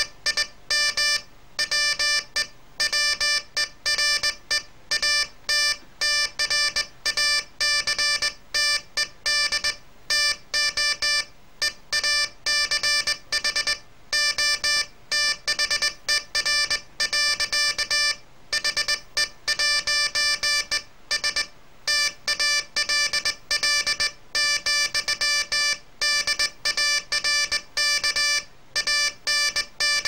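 Morse code sent by hand on a straight key, sounding through a small home-built oscillator and speaker: one steady buzzy tone switched on and off in dots and dashes, with short gaps between letters and longer pauses between words.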